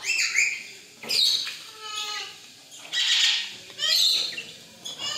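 Birds calling: a run of sliding, pitched chirps mixed with several harsh, noisy squawks.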